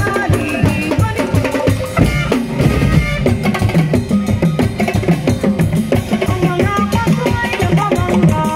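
Music with steady, dense drumming and a pitched melody over it, the accompaniment for a street-dance performance.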